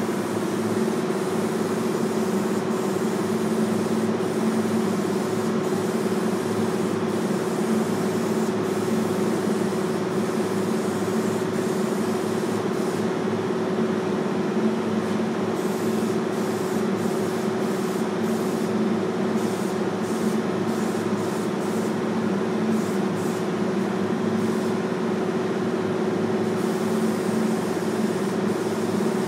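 Aerosol spray-paint can hissing over a steady, even mechanical hum.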